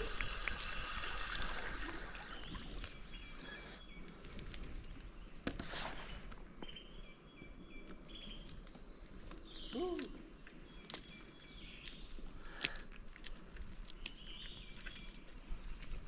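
A spinning reel whirs steadily as a small fish is cranked in, stopping about two seconds in. Then quiet river ambience follows, with faint bird chirps, a few knocks and small splashes as the fish is handled.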